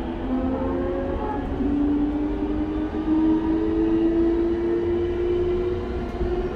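Mitsubishi IGBT-VVVF inverter and traction motors of an E233-1000 series train whining as it pulls away from a station, two tones rising slowly in pitch over a steady low rumble of wheels on rail, heard from inside the motor car.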